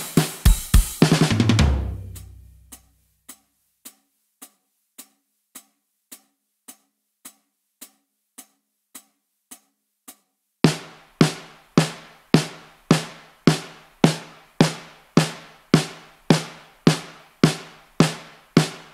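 Programmed drum kit from Addictive Drums 2 playing at 106 bpm. A busy beat closes with a low ringing drum that dies away about two seconds in. Quiet clicks then mark each beat, nearly two a second, until loud drum strikes take over on every beat about halfway through.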